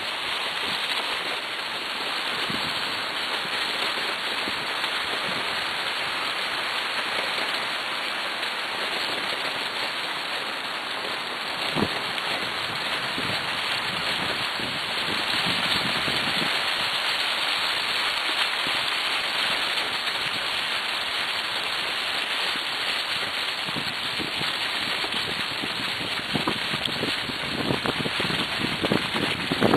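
Steady rustling crackle of dry fallen leaves churned up by a husky team's paws and the rig moving along a leaf-covered trail, with a single knock about twelve seconds in.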